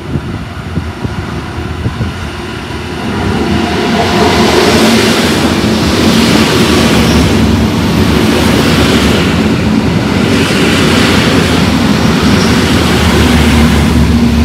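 Koleje Mazowieckie electric multiple unit running in along the platform close by. The rumble of wheels on rail and the running gear grows loud over the first few seconds and then stays loud as the carriages pass, with a steady hum coming in near the end.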